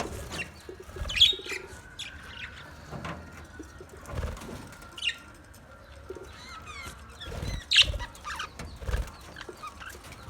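Budgerigars chirping in short, scattered calls, with wing flutters and rustling among them.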